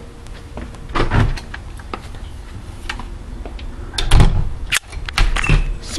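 Camera handling noise while the lens is being covered: clicks, knocks and rubbing against the microphone, loudest about four seconds in.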